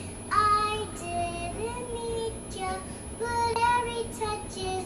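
A young girl singing a slow tune in long held notes, stepping from one pitch to the next.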